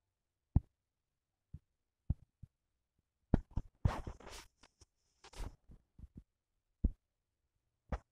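Fingers tapping and rubbing on a phone's touchscreen, picked up by the phone's own microphone: several sharp single taps a second or so apart, then a cluster of scratchy rubbing noises about three seconds in, and a few more taps.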